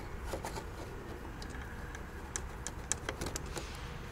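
Scattered light clicks and taps of hands handling the cargo body of a radio-controlled Ural truck model, over a steady low background rumble.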